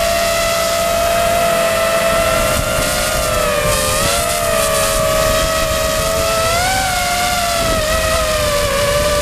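The electric motors and propellers of an FPV quadcopter whine steadily in flight, heard close up from the GoPro mounted on it. The pitch wavers and dips about four seconds in and rises briefly about seven seconds in, with a short rush of hiss around four seconds.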